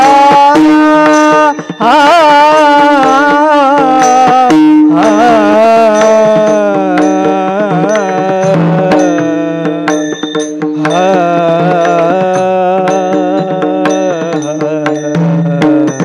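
A male voice sings long, slow, ornamented devotional melody lines, the held notes sliding up and down over a steady drone. Small hand cymbals (tal) clink and a drum keeps time.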